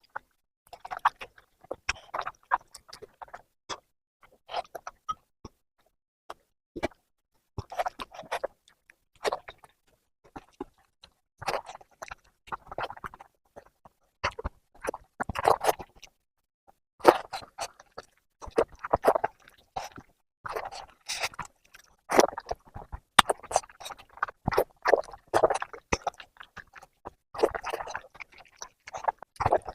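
Close-miked eating: wet chewing and mouth smacking on mutton fat curry with rice, coming in irregular bursts of short clicky sounds with brief pauses between mouthfuls.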